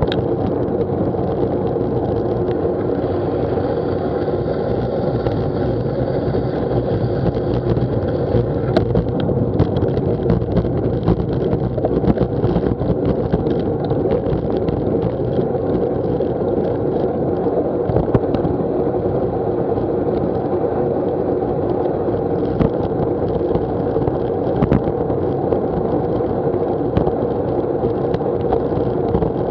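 Steady wind rumble on a bicycle-mounted action camera's microphone at road-cycling speed, mixed with tyre noise on wet tarmac. Small clicks and rattles from the bike over bumps come every second or so.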